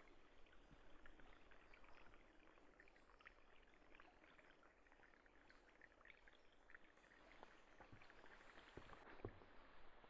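A small stream trickling and gurgling faintly, with many small water ticks and bubbles and a slightly louder knock about nine seconds in.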